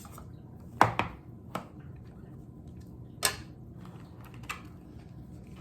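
Small product box being opened and its packaging handled: a few scattered sharp clicks and taps, the loudest about a second in.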